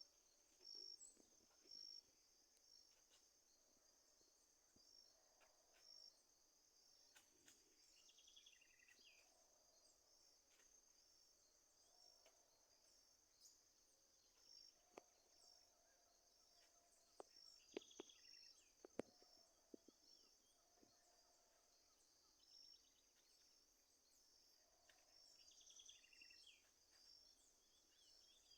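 Faint outdoor evening ambience: a steady high insect chorus, chirring in a fast even pulse, with a few short bird calls scattered through and a handful of sharp clicks around the middle.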